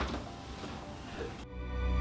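Faint room noise with a couple of soft knocks, then about one and a half seconds in, music cuts in abruptly with steady held notes and grows louder.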